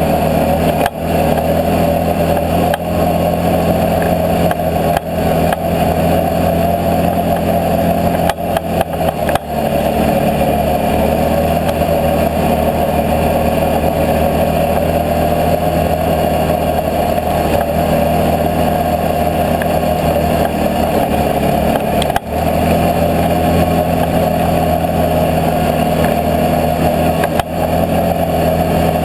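Can-Am Outlander 650 X mr ATV's V-twin engine running at a steady, even throttle while riding a snowy trail, with a few brief dips in level along the way.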